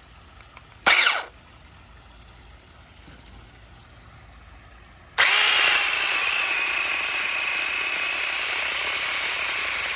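Cordless electric mini chainsaw: a short burst of the motor spinning up about a second in, then from about five seconds in the motor runs steadily with a loud, high whine as the chain cuts into a branch.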